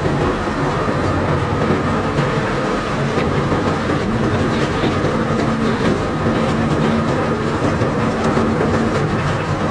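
Barge unloading conveyor running steadily with a load of cobblestones: a constant mechanical rumble and clatter over a low, steady machinery hum.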